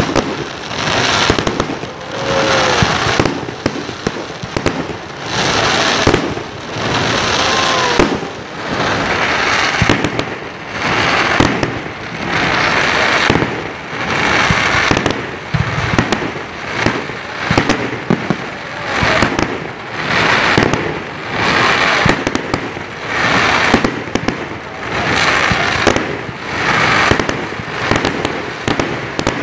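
Fireworks display going off in a steady run: a rushing hiss swells and fades about once a second, over many crackling pops, with a couple of short whistles in the first third.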